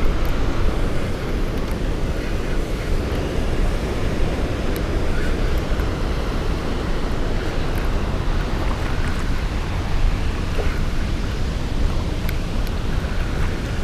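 Steady rush of spillway water, with wind rumbling on the microphone.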